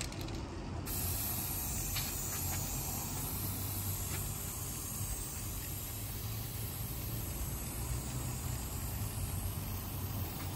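Aerosol spray paint can spraying in a steady hiss, starting about a second in, as paint is laid along a taped-off line on pavement.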